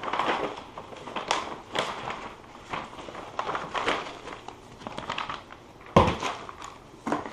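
Paper and cardboard rustling and crinkling as a poster and the packaging of a graphics card box are handled, with a sharp knock about six seconds in.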